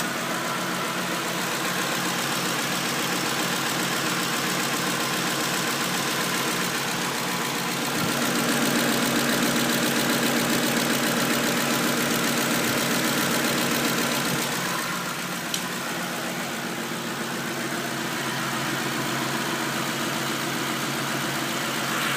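Ford Super Cab pickup engine idling steadily, a little louder for several seconds in the middle, with one short sharp click a few seconds later. The owner reports a ticking noise on startup that disappears as the engine warms.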